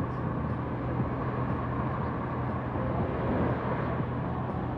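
Steady city background: a continuous low hum of traffic and urban noise, with no distinct events.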